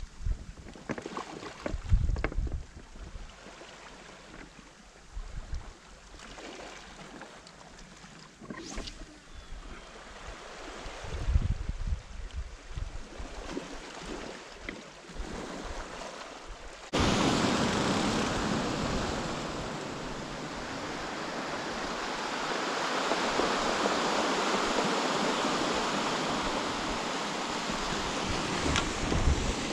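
Wind buffeting the microphone in low gusts, with faint surf behind. About halfway through it switches suddenly to the steady rush of small waves breaking and washing over a pebble beach, swelling and easing slowly.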